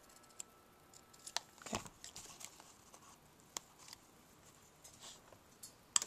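Scissors snipping through a thin die-cut cardstock fence: a few quiet, sharp snips with light paper rustling between them.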